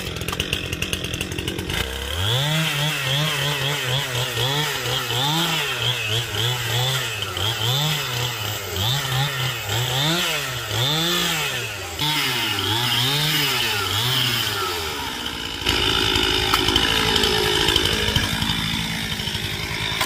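A two-stroke chainsaw's engine starts about two seconds in and is revved up and down over and over. From about sixteen seconds it runs louder and steadier.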